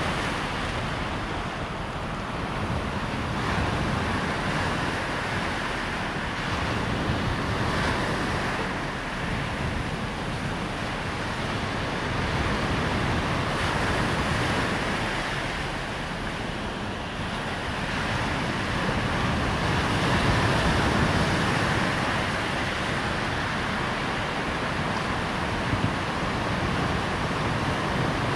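Waves breaking on a sandy beach: a continuous wash of surf that swells and eases every few seconds, with wind on the microphone.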